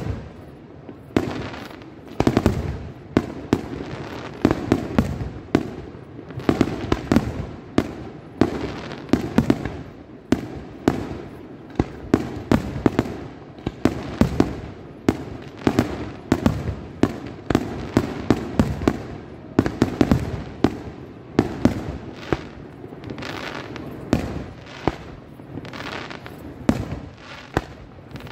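Aerial firework shells bursting in a rapid, steady series of bangs, about one to two a second.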